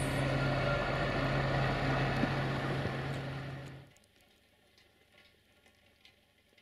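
Diesel train running close by: a steady rumbling noise with a low engine hum. It cuts off sharply about four seconds in, leaving near silence with a few faint ticks.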